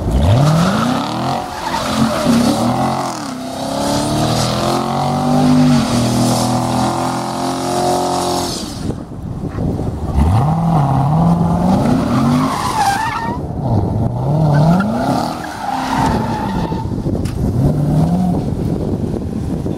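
2017 Corvette Stingray's 6.2-litre LT1 V8 revving hard as the rear tyres spin and squeal through burnout donuts. The revs climb sharply at the start and are held for several seconds. After a short drop around the middle, the engine is revved up and down several times.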